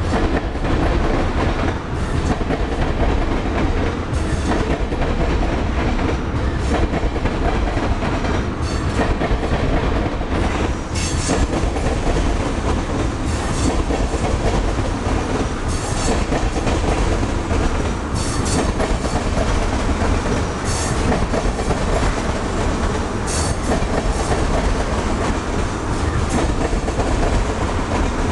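Tank cars of a freight oil train rolling past close by: a steady rumble of wheels on rail, with a sharper clack coming back about every two and a half seconds as each car's wheels pass over the rail joints.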